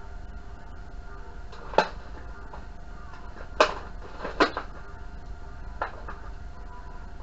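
Four sharp clicks from tools and parts being handled during hand work on a television circuit board, over a steady low hum.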